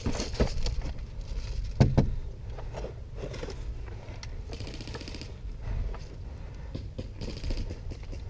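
Rustling, scraping and handling noise from a body-worn camera and a player's gear during an airsoft game, with a heavy thump about two seconds in. There are brief stretches of rapid clicking around five seconds in and again near the end.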